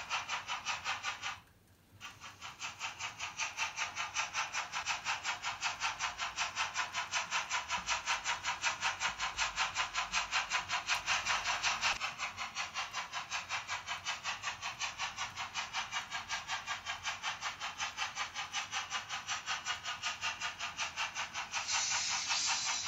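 Sound decoder of a Märklin H0 BR 94 (Prussian T 16.1) model steam locomotive playing its running sound: a steady, thin steam chuff, about five beats a second, through the model's small built-in speaker. The chuffing breaks off briefly about a second and a half in, then carries on.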